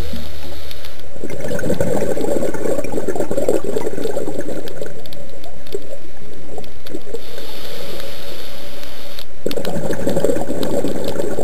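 Scuba diver's exhaled bubbles gurgling and rumbling, heard underwater through the camera housing. The bubbling stops briefly about a second in and again near the end, then resumes.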